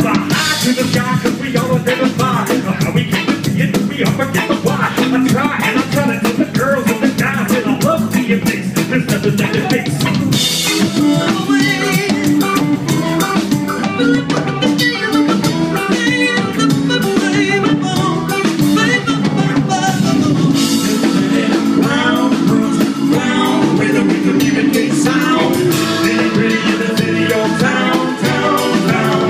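A live band playing: drum kit, guitar and singing voices.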